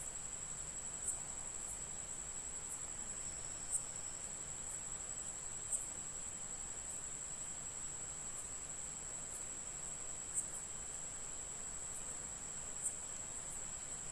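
A steady, high-pitched whining tone with short faint ticks at the same pitch roughly once a second, over a soft background hiss.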